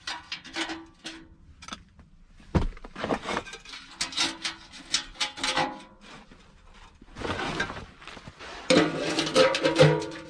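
A portable sheet-metal tube stove and its wire side racks being handled and set in place: scraping and rattling, a sharp knock about two and a half seconds in, then a burst of metal clanks with a short ring near the end.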